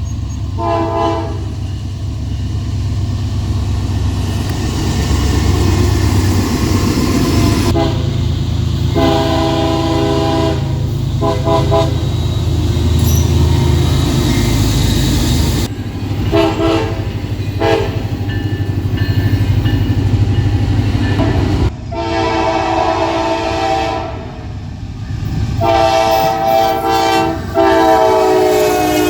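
Locomotive air horns sounding a series of short and long blasts, about seven in all, several notes at once, over the steady low rumble of a moving train. The sound changes abruptly several times as different clips are cut together.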